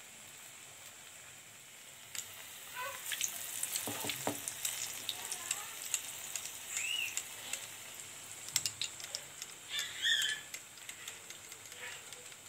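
Piyaji (onion fritters) frying in a pan of hot oil, sizzling with a dense crackle that starts about two seconds in. A few short high chirps sound over it.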